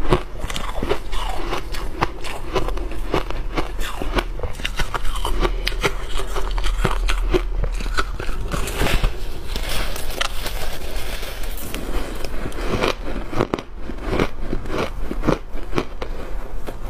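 Refrozen shaved ice crunching and crackling close to the microphones: first broken up by fingers in the tray, then bitten off in big lumps and chewed, with a dense run of quick crackles throughout.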